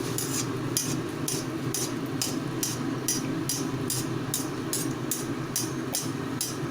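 Breaded chicken donut deep-frying in oil in a kadai on a low gas flame: a steady sizzle with sharp crackles about twice a second.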